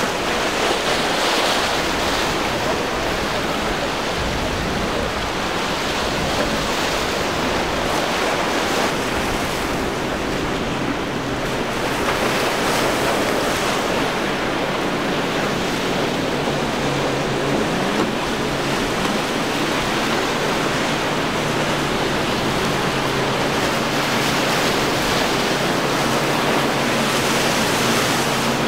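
Waves and surf rushing and breaking in rough water, with wind on the microphone. From about a third of the way in, the low steady drone of boat engines runs under the surf.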